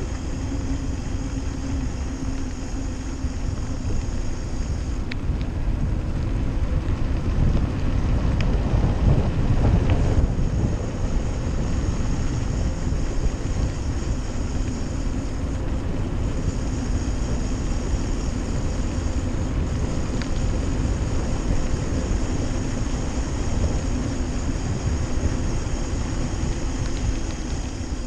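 Steady wind noise on the microphone and tyre rumble from a mountain bike rolling downhill on a rough country road. The rush swells for a moment about nine to ten seconds in.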